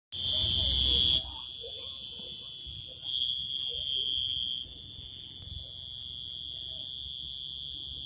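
A cricket's continuous high-pitched trill, steady throughout, growing louder twice for about a second each. A low rumble sits under the first second.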